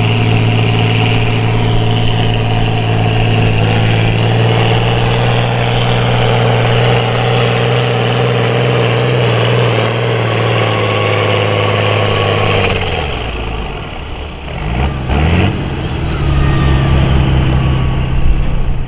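Pulling farm tractor's engine running hard at a steady high pitch, then dropping off about thirteen seconds in as the throttle comes back. A lower, steadier engine note takes over near the end.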